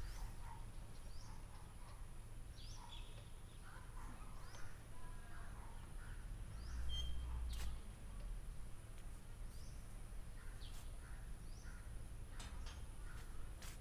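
Birds chirping and calling in scattered short notes over a low wind rumble on the microphone, which swells briefly about seven seconds in, with a faint steady high whine throughout.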